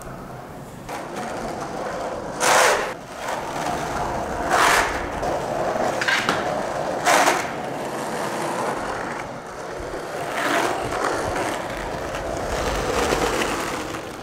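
Skateboard wheels rolling over a smooth concrete floor, a steady rumble broken by several short louder bursts of noise.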